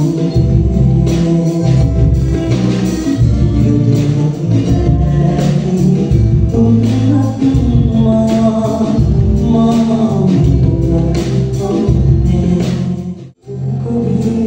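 Live band and male singer performing a Sinhala song: sung vocals over keyboard and drums with a steady beat. The sound drops out suddenly for a moment about 13 seconds in, then the music carries on.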